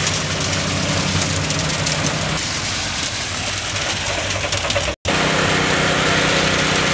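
Heavy diesel engine of a concrete mixer truck running steadily while wet concrete slides down the chute, a gritty rushing noise over the engine. The sound breaks off for an instant about five seconds in and resumes.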